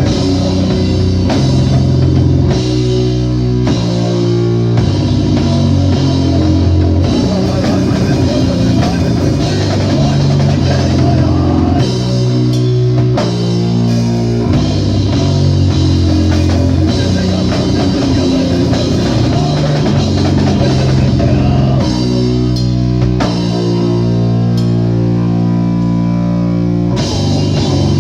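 Live rock band playing a song loud, with drum kit and guitar.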